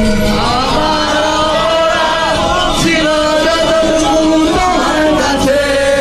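Men singing together, one voice into a handheld microphone and others joining in, with long held notes that glide between pitches.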